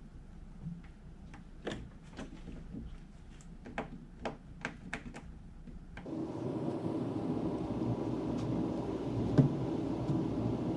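A series of light clicks and knocks, like parts or tools being handled, then from about six seconds in a steady engine or motor drone.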